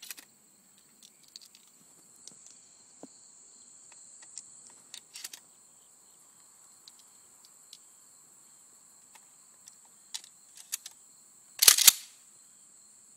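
Shotgun being handled and loaded, with scattered light clicks and clacks, then one loud shotgun shot near the end as a Remington shell fires and cycles without jamming. Crickets keep up a steady high chirring throughout.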